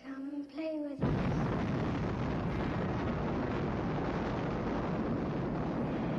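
Nuclear-explosion sound effect on a film soundtrack: a sudden loud blast about a second in that becomes a dense, steady rumble and does not let up.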